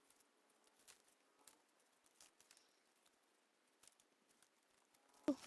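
Near silence with a few faint scattered ticks, then one short louder sound falling in pitch near the end.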